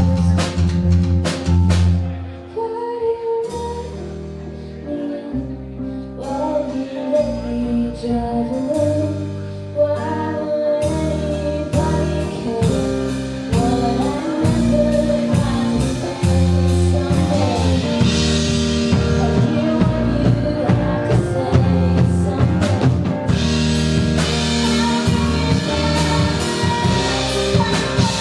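Live rock band playing through a club PA: electric guitar, bass and drum kit, with sung vocals.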